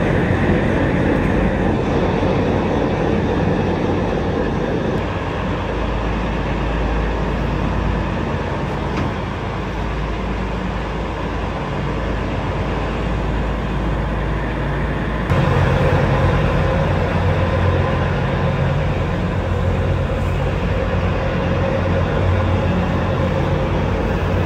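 A vehicle's engine running steadily under dense travel noise. About fifteen seconds in the sound changes abruptly and grows louder and lower.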